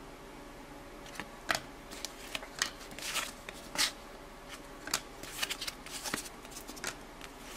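Basketball trading cards being handled and flipped through by hand, with quiet, irregular slides and light ticks of card against card.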